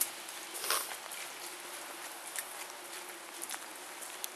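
Light rain falling: a steady hiss with a few scattered taps and clicks.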